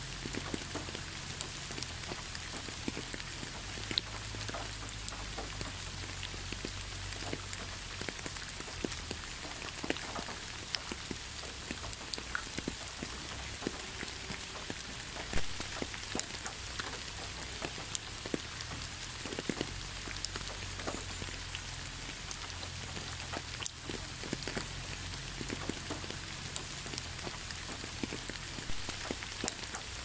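Small waterfall: a steady hiss of falling water with many separate small splashes ticking through it, and a low rumble underneath.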